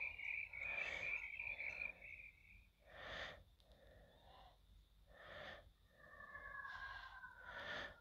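Pitched-down, effects-processed sound effects from an animated TV channel's logo ident: short breathy whooshes about every two seconds, a steady whistle-like tone that fades out about two and a half seconds in, and a slowly falling two-note tone near the end.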